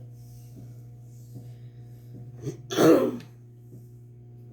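A person clears their throat once, short and loud, about three seconds in, over a steady low electrical hum.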